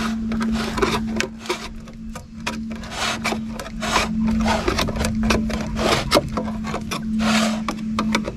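Metal lid of a gallon paint can being pried up with a screwdriver worked around the rim: a rapid, irregular run of scraping clicks and creaks.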